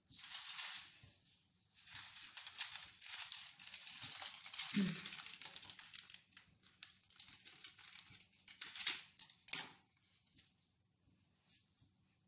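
Plastic packaging crinkling and rustling in irregular spurts while being handled, with one soft knock about five seconds in.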